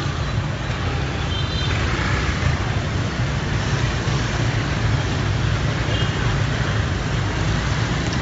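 Busy street traffic: many motorbike and scooter engines running around a slow-moving car, a steady low rumble. Two brief faint high beeps sound about a second and a half in and again near six seconds.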